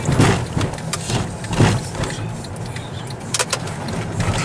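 Car cabin noise while driving: steady engine and tyre rumble heard from inside the car, with a couple of light knocks about three and a half seconds in.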